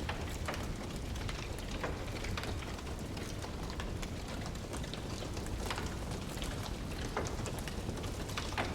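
Wood fire crackling: scattered sharp pops and snaps from burning logs, a few each second, over a steady low rumble.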